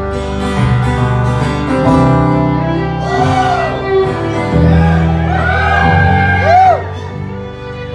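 Song's instrumental break led by acoustic guitar, with a lead line sliding up and down in pitch through the middle few seconds. It gets quieter near the end.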